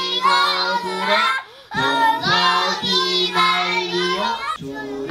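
A group of children chanting a classical Chinese primer aloud in the traditional sing-song recitation, holding long notes on a steady pitch, with a short pause about a second and a half in.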